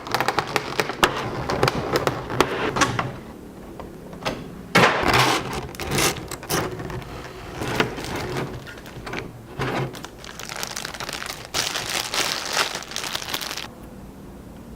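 Hands handling the plastic packaging of a boxed figure: irregular crinkling, crackling and clicks, with a longer dense rustle near the end that stops suddenly.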